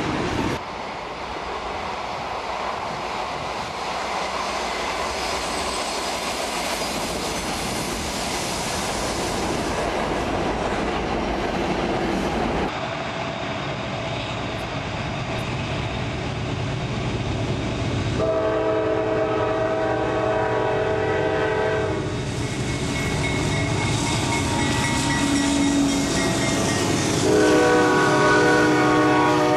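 CSX diesel freight trains passing: rail cars rolling by with wheels clacking over the rail joints, then a lead diesel locomotive sounding its multi-chime air horn in two long blasts, the first about two-thirds of the way in for about four seconds, the second near the end as the locomotives go by.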